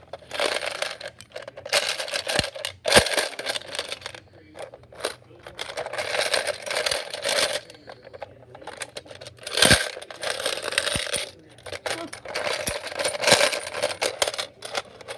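Coins rattling inside a toy bus as it is shaken in repeated bouts, with sharp clinks as coins fall out of it.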